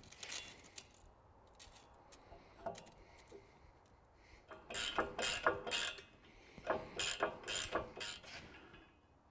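Ratchet wrench clicking as it drives a long bolt into a tire-carrier bracket: two runs of quick clicks, one a little over halfway through and one near the end, with a few lighter metal clicks before them.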